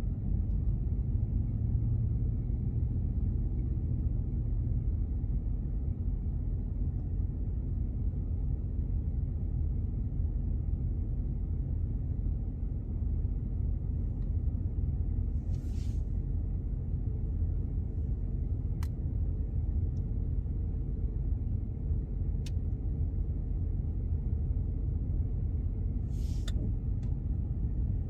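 Steady low rumble of a car heard from inside the cabin, its engine running as it waits or creeps in a line. A few sharp clicks and two short hissing bursts stand out over it.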